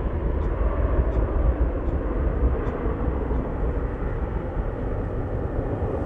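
Jet engine roar of a Boeing 737-800's CFM56 turbofans after takeoff, a steady rumbling roar that slowly fades.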